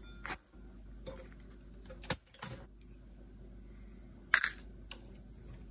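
A small screwdriver and loose parts clicking and tapping against the sheet-metal chassis of a Nakamichi 480 cassette deck being taken apart: a handful of separate sharp clicks, the loudest about four seconds in, over a faint steady low hum.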